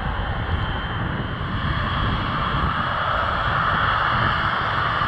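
Boeing 777-300ER's GE90 turbofan engines running at close range as the airliner moves past, a low rumble under a hissing whine that grows louder about two seconds in.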